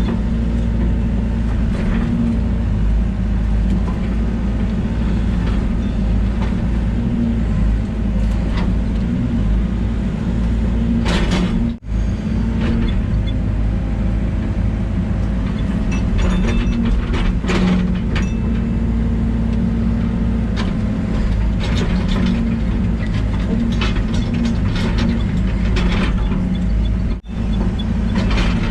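Excavator diesel engine running steadily under work, with scattered clanks and scrapes of the machine handling trees and debris.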